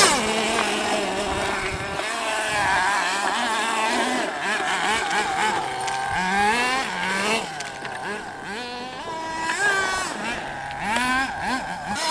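Small nitro glow engine of a radio-controlled monster truck revving up and down over and over as the truck is driven about, its high-pitched note rising and falling every second or so.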